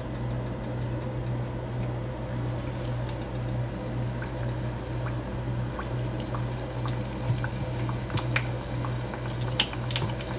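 A batter-coated squash blossom deep-frying in a saucepan of hot oil: bubbling with small crackles that start a few seconds in and grow more frequent toward the end. A steady low hum runs underneath.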